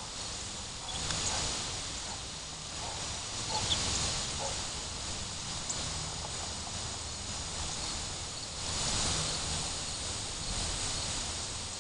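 Outdoor rural ambience: a hissing rustle that swells and fades several times, with a few faint clicks.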